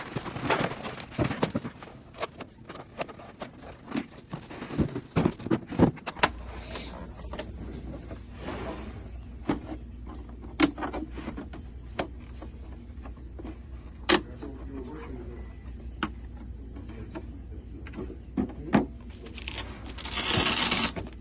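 Hands unpacking a boxed scan tool: scattered clicks, knocks and rustling of the box and packaging. A steady low hum comes in about six seconds in, and a longer rustle sounds near the end.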